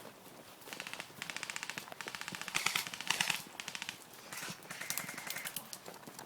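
Airsoft electric guns firing several rapid full-auto bursts of clicks, one after another.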